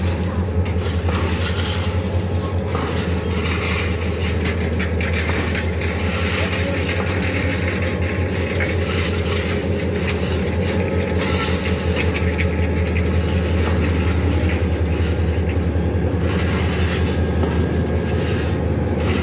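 Diesel locomotive 4712 running with a steady low engine hum as it moves slowly along the track hauling empty ballast hopper wagons, with irregular clanks and rattles from the wagons and rails. The engine grows a little louder near the end as the locomotive comes alongside.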